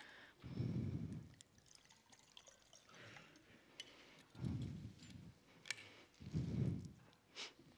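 Water poured from a glass bottle into a drinking glass and drunk, with a few light clinks of glass. Three low, dull sounds about a second long stand out: one near the start, one about halfway and one near the end.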